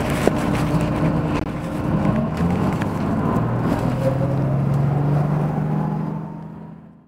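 1994 Nova Bus Classic transit bus's Detroit Diesel engine running, its pitch climbing steadily a couple of seconds in as the bus pulls away and accelerates. The sound fades out near the end.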